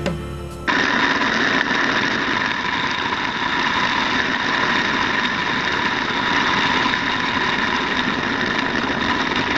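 Shower running: a steady rush of water noise with a few steady tones in it, starting sharply about a second in after a brief bit of acoustic guitar music.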